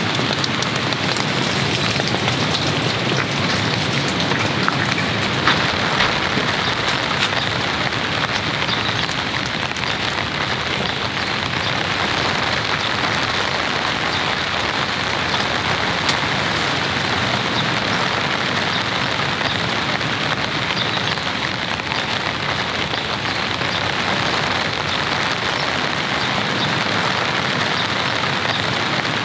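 Steady rain falling: a dense, even hiss of rain with scattered sharper drop hits.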